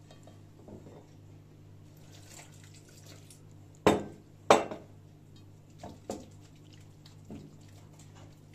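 Wire whisk stirring a flour-and-water batter in a stainless steel bowl, with light clinks against the metal. About four seconds in come two sharp, loud knocks about half a second apart.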